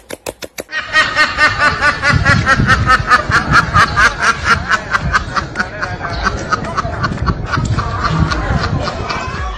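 White domestic duck quacking in a long, rapid, unbroken run of quacks, about six a second.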